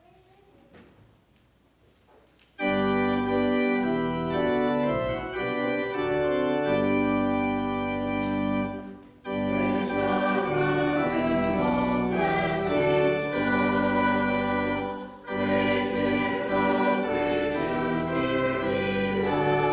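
Church organ starting suddenly a few seconds in and playing sustained chords, with short breaks between phrases.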